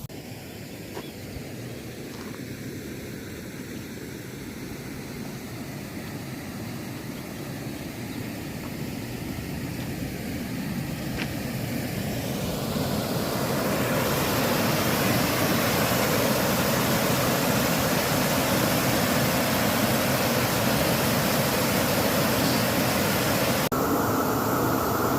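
Steady rushing of a waterfall that grows louder over the first dozen seconds and then holds steady.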